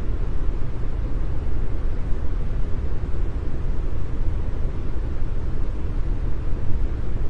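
Continuous brown noise: a steady, deep rushing hiss with most of its weight in the low end, unchanging throughout.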